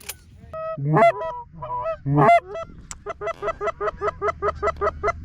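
Geese honking, with two loud honks in the first half, then a fast, even run of short clucks at about five a second from about three seconds in.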